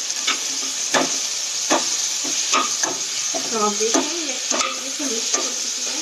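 Diced pumpkin frying in oil on high flame in a non-stick kadhai: a steady sizzle, with a steel slotted spatula scraping and knocking against the pan every second or so as the pieces are stirred and tossed to crisp them.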